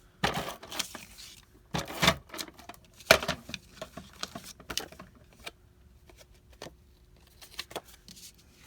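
Paper-craft handling noises at a desk: card stock is shuffled and pressed as adhesive is applied. There are three short rustling scrapes in the first few seconds, then lighter scattered taps and clicks.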